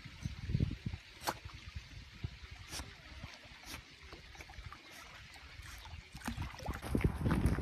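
A miniature dachshund paddling through shallow water, with light splashing and lapping and scattered small clicks over a low rumbling noise. About a second before the end the sound changes to a louder rumble.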